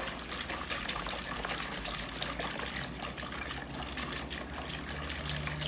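Wire whisk stirring dry yeast into warm milk in a bowl. The milk sloshes steadily, with many small quick ticks.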